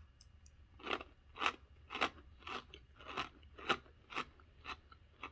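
Crunching of a crisp, thin lemon cookie being chewed, about two crunches a second starting about a second in.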